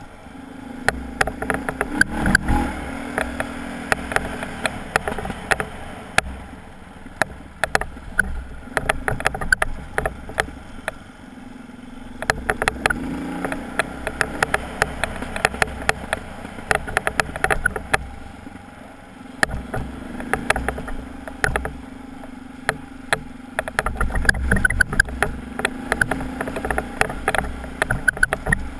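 Dual-sport motorcycle engine running at low speed on a rocky dirt trail, with frequent sharp clacks and rattles as the bike and its luggage jolt over the stones.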